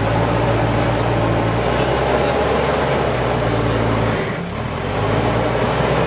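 JCB backhoe loader's diesel engine running steadily under load as the front bucket pushes soil, its note dropping briefly about four seconds in before picking up again.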